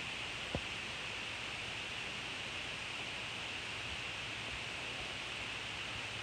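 Steady hiss with a faint low hum, a room tone picked up by the recording, and a single small click about half a second in.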